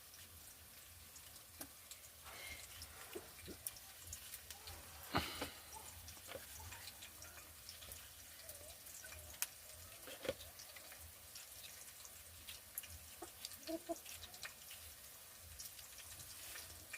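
Faint, irregular clicks and small knocks of kitchen work, with two louder knocks about five and ten seconds in.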